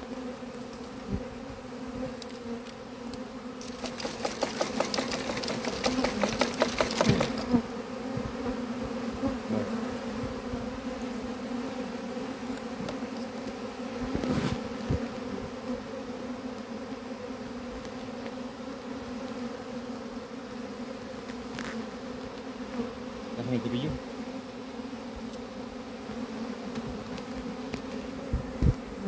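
A swarm of honeybees buzzing steadily in a close, even hum around and on a nucleus hive box. About four seconds in, a few seconds of rapid crackling handling noise rise over the hum.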